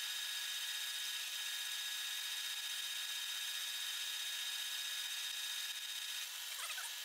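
Bridgeport milling machine spindle running a 3/8-inch drill bit fed into a flywheel, a steady high whine over a hiss of cutting. Near the end the whine stops.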